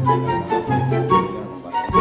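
Music with a bass line of held low notes and a higher melody over it.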